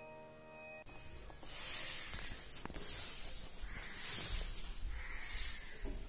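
A held music chord cuts off about a second in. It is followed by repeated bursts of rustling hiss over a low rumble, the sound of a phone being handled and moved.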